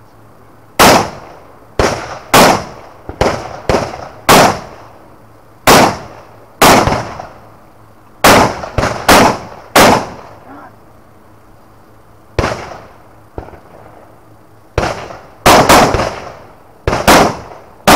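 Rifle shots fired in quick, uneven strings, about twenty in all, each a sharp crack trailing off in a short echo, with pauses of one to two seconds between strings.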